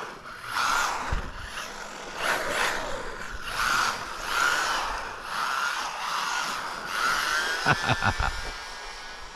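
MJX Hyper Go 1/14-scale RC rally car running on a 2S lipo battery, its electric motor and drivetrain whining in repeated surges that swell and fade about once a second. A rising whine comes near the end, with a few knocks.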